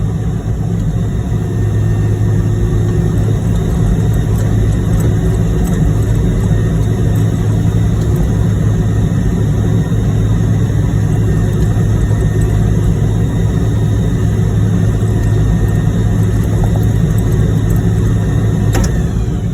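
Heavy diesel truck engine running steadily with a deep drone; a short click comes near the end and the engine note drops away.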